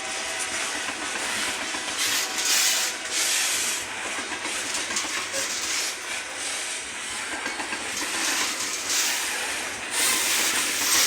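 Ferromex freight train's cars rolling past, steel wheels on rail making a steady rushing noise that swells several times, loudest near the end.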